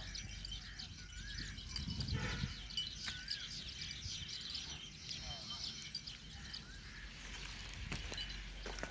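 Small birds chirping and calling: many quick high chirps with a few short rising-and-falling whistles, and a brief low noise about two seconds in.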